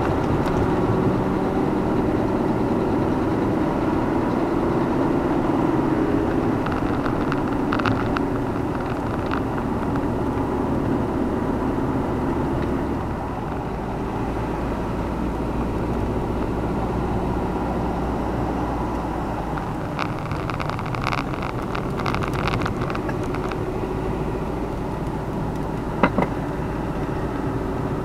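A car driving along a rough mountain road, heard from inside the cabin: steady engine and tyre noise, with its low hum changing about halfway through. Bursts of short clicks and rattles come a third of the way in and again past the middle, and there is one sharp knock near the end.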